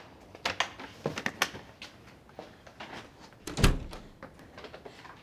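Footsteps and small knocks and handling sounds in a hallway, then a heavy door thudding shut about three and a half seconds in.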